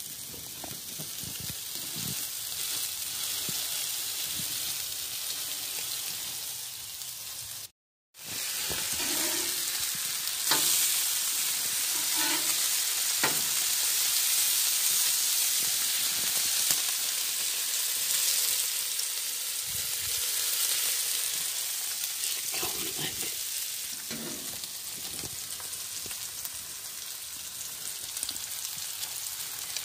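Beef burger patties and bacon sizzling steadily on a gas grill's flat-top griddle. The sound breaks off briefly about a quarter of the way in and comes back louder, with a few light clicks.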